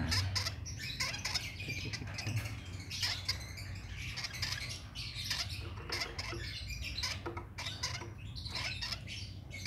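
Hand-fed lovebird chick begging while being fed formula: a rapid, irregular run of short raspy squeaks and chirps.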